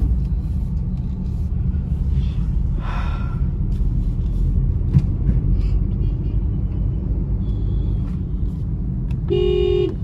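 Steady low rumble of a car's engine and road noise heard inside the cabin while driving in traffic, with faint horns from other vehicles. A loud vehicle horn sounds once for about half a second near the end.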